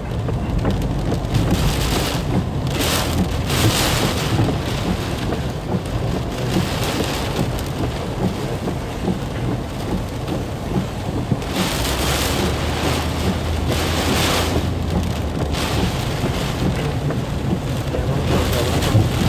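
Heavy rain pelting a car's roof and windshield, heard from inside the moving car as a loud, steady hiss that swells several times, with a low rumble under it for a few seconds in the second half.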